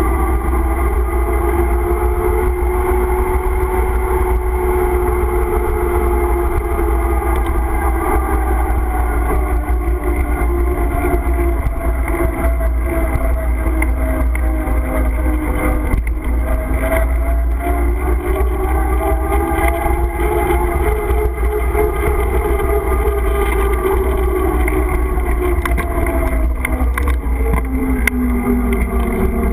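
Engine of a small trail vehicle running along pavement, its pitch slowly falling and rising with speed and dropping lower near the end. A steady rumble of wind on the camera microphone runs under it.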